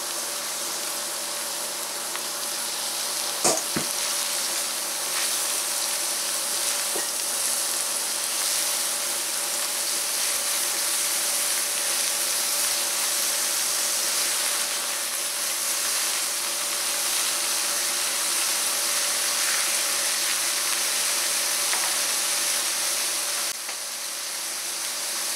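Diced zucchini with chorizo, onion and jalapeños frying in a stainless steel skillet: a steady sizzle, with a silicone spatula stirring through the pan. A single sharp knock about three and a half seconds in, and the sizzle eases slightly near the end.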